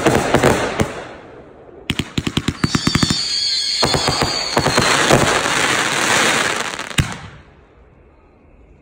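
Consumer aerial fireworks going off: a rapid string of sharp pops about two seconds in, then a dense wash of bursting shells. A single sharp bang comes near seven seconds, and after it the sound dies away.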